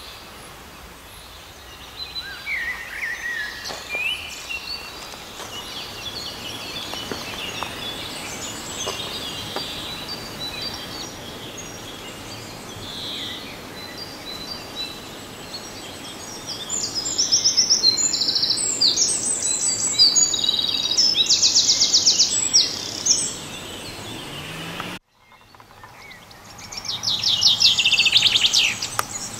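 Several songbirds singing and chirping, with loud, fast trilled songs in the second half. The sound cuts out for a moment shortly before a last trill.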